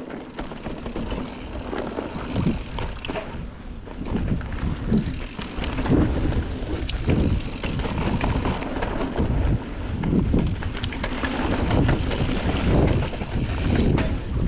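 Mountain bike riding fast down a dirt trail: tyres rumbling over the dirt and wind rushing over the action camera's microphone, with occasional sharp clicks and knocks from the bike. It gets louder about four seconds in as the speed picks up.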